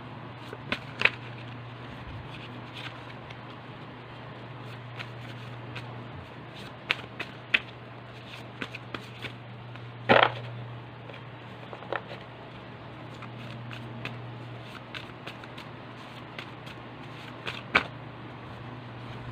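Cards being handled and shuffled by hand, with scattered short snaps and taps as they are riffled and set down; the loudest snap comes about halfway through. A steady low hum sits underneath.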